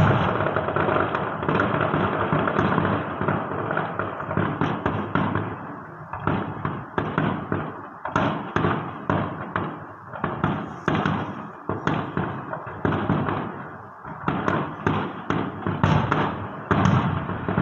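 Electronically fired aerial fireworks bursting in a rapid barrage: a dense, continuous crackle for the first several seconds, then separate booms coming several a second.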